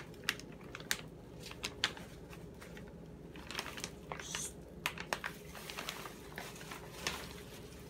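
Plastic bag of tilapia fillets crinkling and rustling as it is handled, in irregular sharp clicks and crackles.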